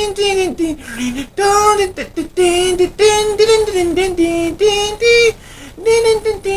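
A man singing a cappella, a pop-rock melody of held notes broken by short pauses between phrases.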